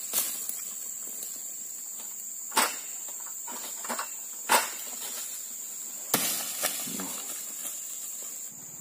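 A steady high-pitched insect chorus in the plantation. Four sharp knocks or snaps break over it at intervals of about two seconds.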